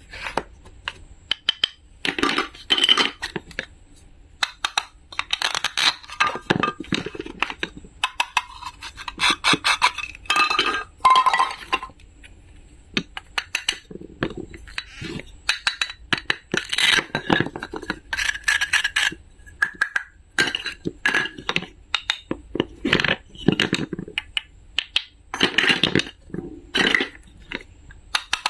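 Small hard objects being handled, knocking and clinking together in irregular clusters of clicks and clacks, some of them ringing briefly.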